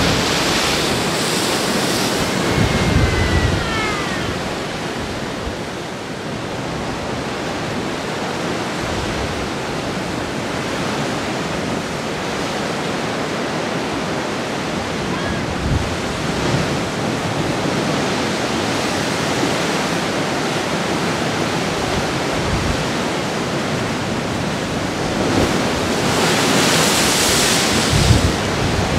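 Ocean surf breaking on lava rock: a continuous rush of waves and spray, swelling and easing, with low thuds as heavier waves hit. The biggest surges come just after the start and again near the end.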